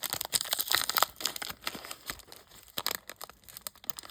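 A foil trading-card pack being torn open and crinkled by hand: irregular crackling and tearing, busiest in the first two seconds and thinning out later.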